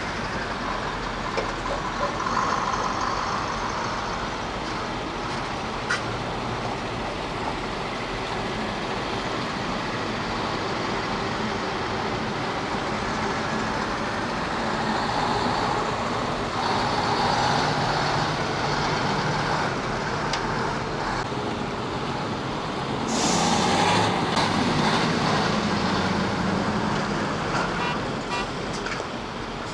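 A convoy of heavy trucks driving past, a steady mix of engines and tyres on the road. It swells louder for a few seconds near the end.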